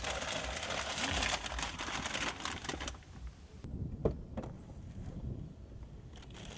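Rustling and rapid clicking of someone moving about inside a car, then two sharp clicks of the car door opening about four seconds in, followed by quieter shuffling.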